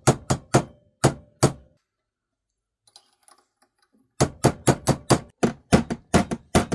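Hammer tapping an oval, bent part of a Kawasaki GPZ900R's speedometer drive to knock it round: about five taps, a pause of a couple of seconds, then a quick run of taps at about four a second.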